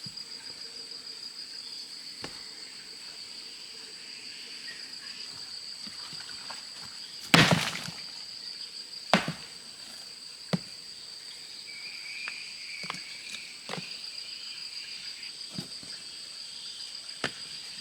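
Insects droning steadily in a forest, a high, slightly pulsing chirr, with scattered sharp knocks over it, the loudest about seven seconds in.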